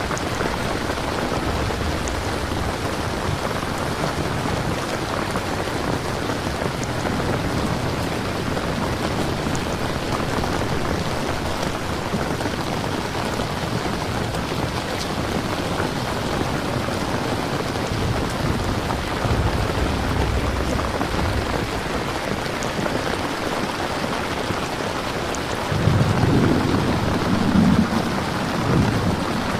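Steady rain falling, with a low rumble of thunder near the end.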